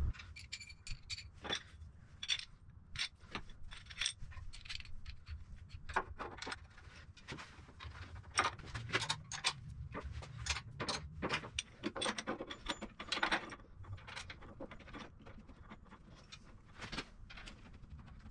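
Irregular metallic clicks and clinks from a spanner and steel brake hangers being bolted onto a 7.25-inch gauge steam locomotive's frame.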